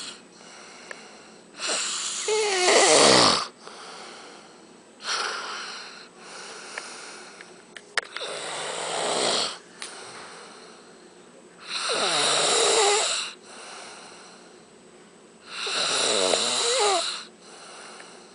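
A man snoring loudly in his sleep. There are about five rasping snores, one every three to four seconds, with quieter breathing between them.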